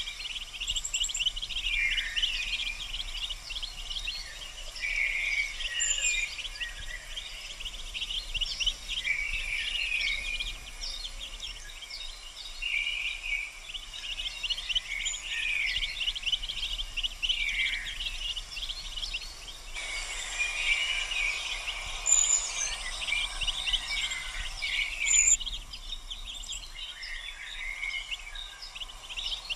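Mallard ducklings peeping over and over, a dense run of short high chirps and little downward-sliding calls.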